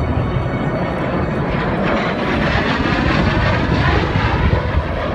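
F-16 jet engine noise as the aircraft pass overhead: a loud, steady rushing roar that turns brighter and hissier from about a second and a half in, easing off again near the end.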